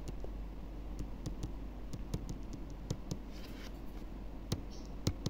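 Scattered light clicks and taps of a stylus on a touchscreen while handwriting notes, irregular and faint, over a low steady hum.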